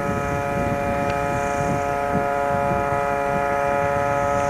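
An engine drones at a steady, unchanging pitch, with many even overtones over a rough low rumble.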